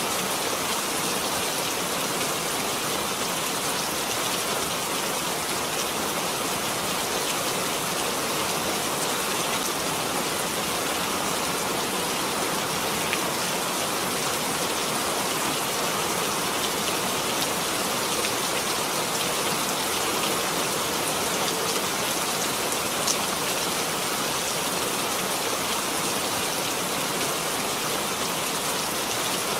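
Steady rain falling, an even hiss with the patter of drops hitting surfaces.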